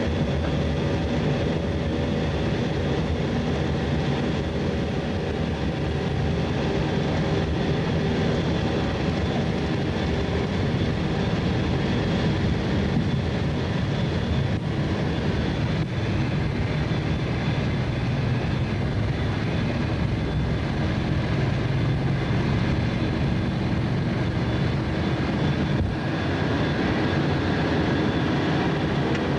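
Boeing E-3D Sentry's four CFM56 turbofan engines running, heard inside the cockpit as the aircraft rolls along the runway: a steady rumble with thin whining tones over it and a few faint knocks.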